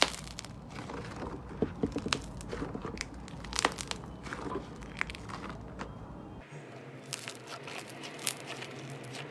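Slime being squeezed and pressed by hand, giving irregular crackling and sharp clicking pops. A low background hum drops out about six seconds in.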